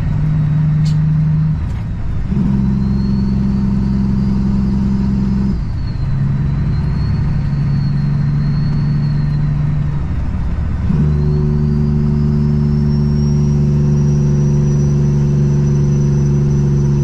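Diesel engine of a 2008 Kenworth W900L semi truck running at highway speed, heard from inside the cab. Its steady low hum breaks and changes pitch briefly about two, five and a half and eleven seconds in, and a faint high whistle rises after the last change.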